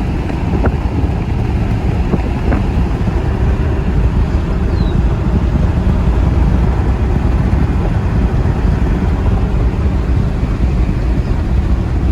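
Steady low rumble of a moving vehicle heard from inside the cab: road and engine noise with some wind on the microphone.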